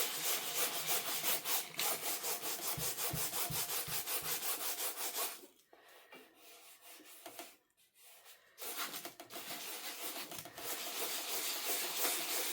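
180-grit sandpaper rubbed by hand in quick back-and-forth strokes over dried acrylic paint on a stretched canvas, knocking down ridges. The sanding stops for about three seconds near the middle, then starts again.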